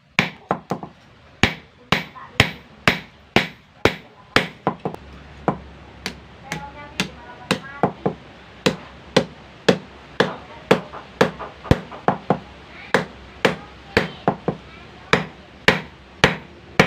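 Hand hammer striking steel on an anvil, forging a knife blade, with steady ringing blows about two a second.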